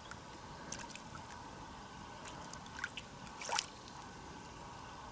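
Faint trickling and dripping of pond water around hands working at the surface, with a few small drips and splashes, the clearest about three and a half seconds in.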